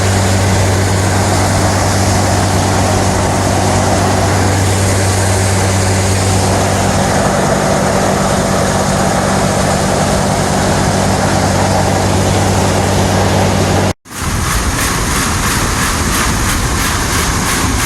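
Tractor engine running steadily under load while pulling a deep ripper, a constant low hum. About fourteen seconds in the sound cuts off abruptly and a different machine noise with a fast, even clatter takes over.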